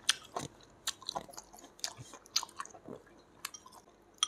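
A person chewing food close to the microphone: irregular wet mouth smacks and clicks, several a second. Near the end comes one short ringing clink of tableware.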